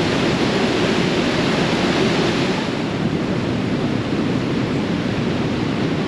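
Manavgat Waterfall's low, wide falls and the whitewater rapids below them rushing steadily.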